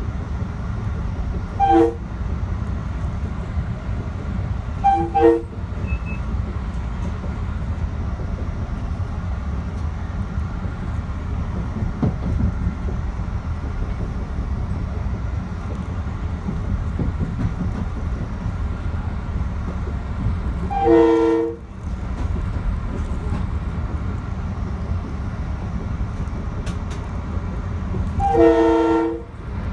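Commuter train running with a steady low rumble while its multi-tone horn sounds: one short blast, then two quick short blasts, then two longer blasts later on.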